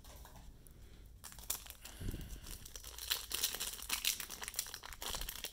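Foil wrapper of a Panini Prizm basketball card pack crinkling and tearing as it is handled and pulled open by hand, a run of crackles that starts about a second in and gets busier toward the end.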